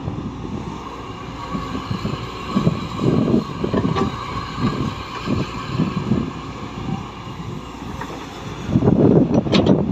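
Heavy diesel construction machinery at work: an engine running under uneven, pulsing load, getting louder near the end.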